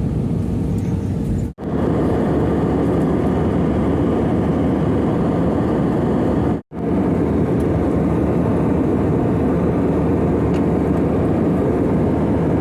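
Steady airplane noise, an even low rushing sound with most of its weight in the low end. It breaks off into silence twice, very briefly, about one and a half seconds in and again about six and a half seconds in.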